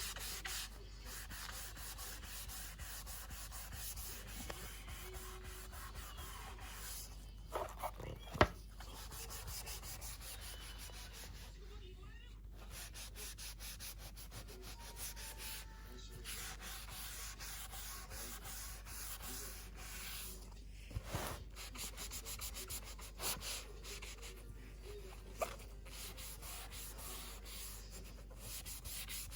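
Wood fire crackling from a virtual fireplace video: a steady hiss full of small crackles, with a few louder pops here and there.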